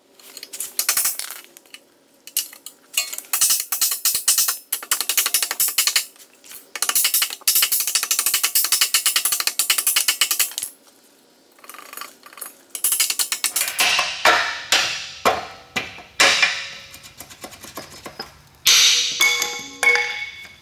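Reciprocating saw (Sawzall) cutting through the metal shell of an old subframe bushing, running in long stretches for about ten seconds. After a short pause comes a series of separate sharp metal knocks and short rattling bursts as the cut bushing is worked loose.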